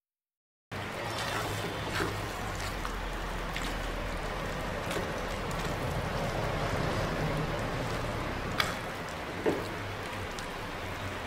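Risotto being stirred with a plastic spatula in a nonstick frying pan: a steady noise from the simmering rice, with scraping and a few sharp clicks of the spatula against the pan. The loudest clicks come near the end. The sound begins abruptly under a second in.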